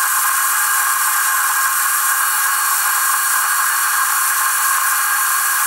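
Warco WM180 mini lathe turning mild steel at about 750 rpm while a CCGT carbide insert takes a 0.5 mm-deep cut: a loud, steady hiss with a constant whine underneath.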